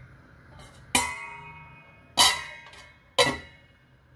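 A metal lid being set onto a cooking pan: three sharp clinks about a second apart, each ringing briefly.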